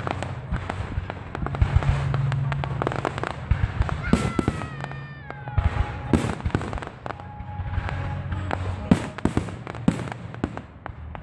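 Fireworks display: a dense run of sharp bangs and crackling as rockets launch and shells burst. A falling whistle comes about four seconds in.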